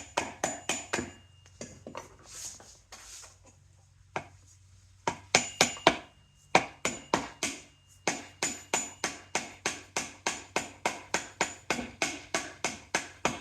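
Hammer tapping a seal driver to seat a new rear main oil seal in a BMW R69S engine: quick light metallic taps, about four a second, each ringing briefly. The taps come in runs broken by short pauses.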